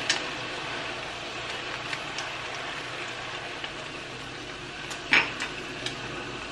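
A spatula scrapes and taps against a saucepan as rice is stirred, over a steady sizzle of frying. About five seconds in comes a sharp clack as the spatula is set down on a spoon rest.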